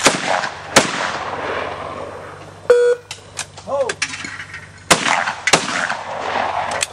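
Shotguns firing: two shots in quick succession near the start and another pair about five seconds in, each crack followed by a long rolling echo.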